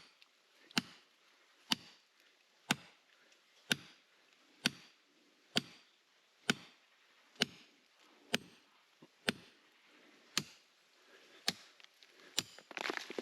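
Steady hammer blows on rock, about one strike a second, as the rock is broken away piece by piece.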